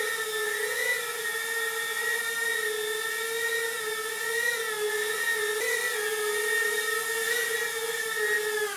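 High-pitched whine of a micro RC Starship SN8 model's small electric motors and propellers as it hovers. The pitch wavers a little with throttle, and the whine cuts off abruptly at the end as the model is brought down.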